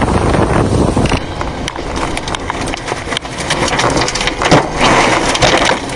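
Heavy rain and wind noise in a thunderstorm, full of sharp crackles, with the sound changing abruptly about a second in. A loud sudden crack comes about four and a half seconds in.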